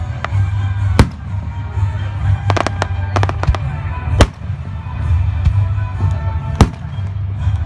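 Fireworks going off: sharp bangs about one, four and six and a half seconds in, with quick runs of crackling reports between them, over a continuous low rumble of booms.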